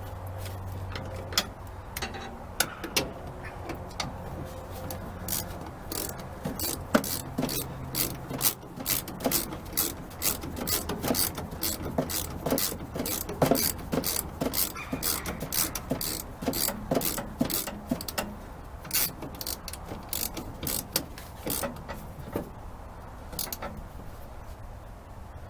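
Ratchet wrench clicking in quick irregular runs as the mounting nuts of a cast-iron brake master cylinder are tightened, over a faint low steady hum.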